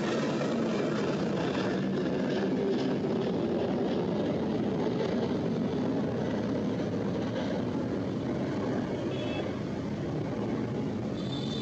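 Jet airliner engines at takeoff power: a steady, rushing noise that slowly weakens toward the end as the aircraft moves away.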